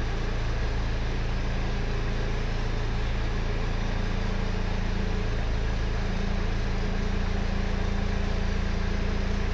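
Forklift engine running steadily as it lowers a flatbed onto a truck chassis, its low hum changing pitch slightly about four seconds in.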